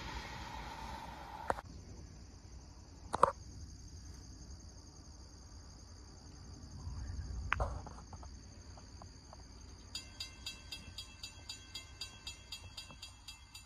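Insects trilling steadily in trackside weeds, with a couple of sharp clicks. The first second and a half carries the rumble of a departing freight train, which cuts off abruptly. From about ten seconds in, a regular ringing pulse of about two strikes a second begins.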